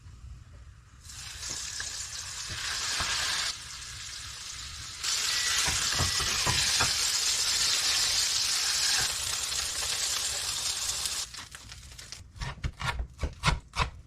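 Food sizzling in a hot frying pan, a steady hiss that gets louder about five seconds in and stops a few seconds before the end. A quick run of sharp knocks follows near the end.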